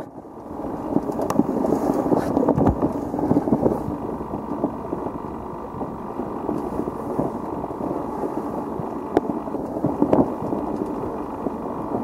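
Wind buffeting the microphone and water rushing along a sailboat's hull under sail in strong wind, a steady rushing noise with a few sharp knocks scattered through it.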